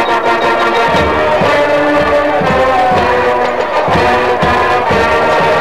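Marching band playing: brass (trumpets, mellophones and sousaphones) holding chords, with a steady bass drum beat coming in about a second in, roughly two beats a second.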